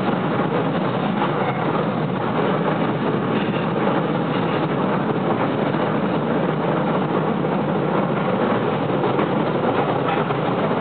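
Steady running noise heard from inside the car of a commuter electric train under way at speed.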